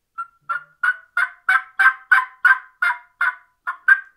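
Diaphragm turkey mouth call yelping like a hen: an even series of short yelps, about three a second.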